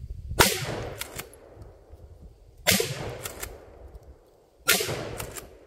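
Three shots from a Benelli pump-action shotgun, about two seconds apart. Each shot is followed within a second by two quick sharp clacks as the slide is racked back and forward to chamber the next shell.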